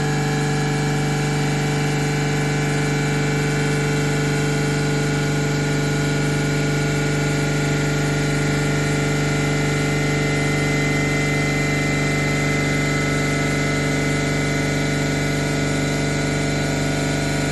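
Frascold Z30-102-51Y semi-hermetic reciprocating refrigeration compressor running steadily under a performance test after remanufacture, giving an even, loud hum with a ring of steady higher tones.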